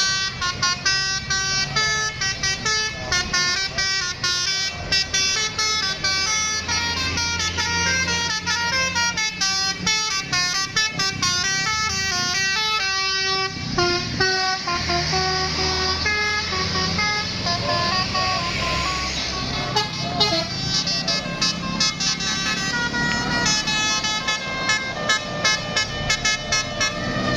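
Indonesian 'telolet' bus horn: a multi-tone musical air horn tooting rapid runs of short stepped notes, playing jingle after jingle with brief breaks between them, over the low running of the bus engine.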